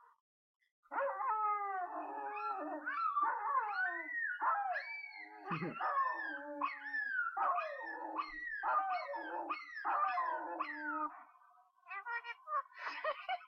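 A dog howling and whining in a long run of rising and falling calls, lasting about ten seconds, followed near the end by shorter, quicker sounds.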